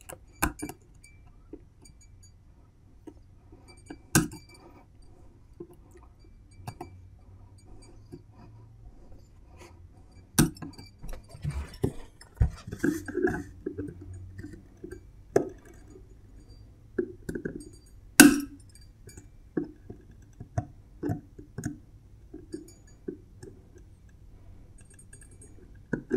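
Snap-ring pliers clicking and clinking against the lock ring on the fan-wheel hub of a 500W air-cooled CNC spindle as the ring is worked off. Irregular small metallic clicks, a handful of them louder.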